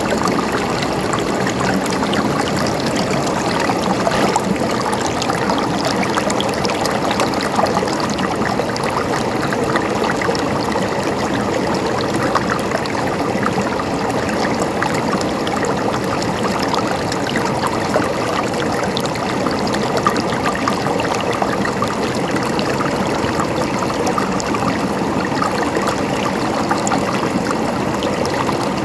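Water flowing steadily over rocks in a stream, with a constant gurgling rush and small splashes.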